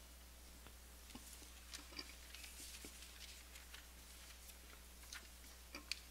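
Quiet church room tone with scattered soft clicks and rustles from singers handling their sheet-music folders and papers, the sharpest clicks about two seconds in and near the end. A steady low hum runs underneath.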